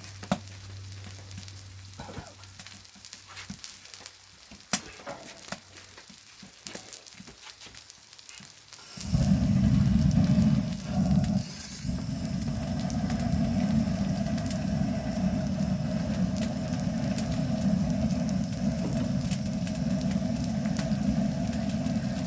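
Meat sizzling on a hot stone slab over a wood fire, with sharp crackling pops. About nine seconds in, a loud steady low hum starts suddenly, breaks off for a moment soon after, then carries on and drowns out the sizzle.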